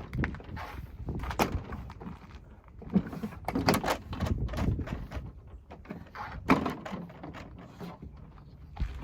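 Irregular knocks, clunks and clicks of a replacement window frame being pushed and worked into an RV entry door, the loudest about a second and a half in, between three and four seconds in, and at six and a half seconds. A low rumble of wind on the microphone runs underneath.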